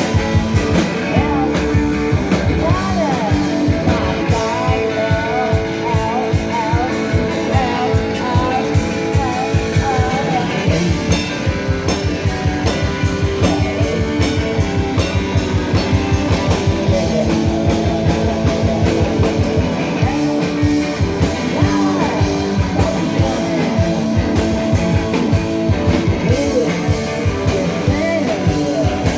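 Live rock band playing garage-punk: electric guitars and a drum kit keeping a steady, driving beat, with singing over the top.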